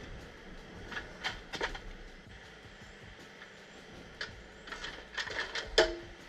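A series of sharp, irregular knocks and clanks. A few come early, then a denser run, and the loudest near the end has a brief metallic ring.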